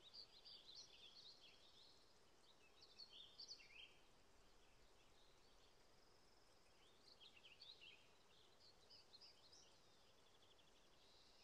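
Faint songbird chirping and twittering in three short bursts, with quieter pauses between, over a faint steady outdoor hiss.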